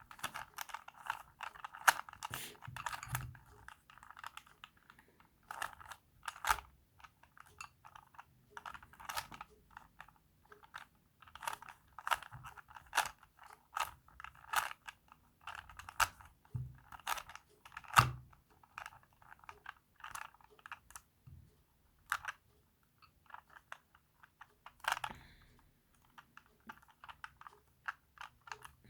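Plastic Rubik's cube being turned: irregular runs of quick clicks as its layers are rotated, with a few sharper snaps as a turn locks into place.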